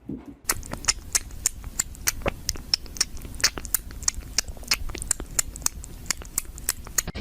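A pet's claws clicking and tapping on stairs as it makes its way down: many short, sharp taps at an uneven pace, several a second, starting about half a second in.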